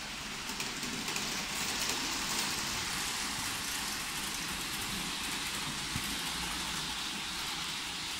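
Model trains running on a layout: a steady rushing hiss of small wheels on rails and their little motors.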